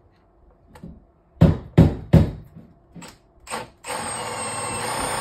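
Three sharp knocks about a second and a half in, then from about four seconds in a power drill-driver runs steadily with a thin high whine, driving a securing screw into the boiler's rear flue collar.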